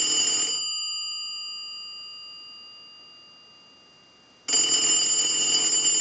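Telephone bell ringing on a standard ring cycle sent from a line test analyzer. A burst of ringing stops just under a second in, the bell's tone dies away slowly, and the next burst starts about four and a half seconds in.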